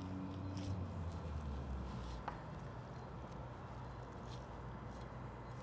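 Flexible boning knife slicing and trimming fat and stringy connective tissue from a raw beef sirloin cap on a wooden cutting board: faint soft squishing and scraping, with a small tick a little over two seconds in.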